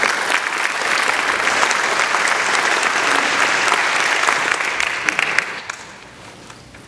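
Concert audience applauding, a dense patter of many hands clapping that dies away about five to six seconds in.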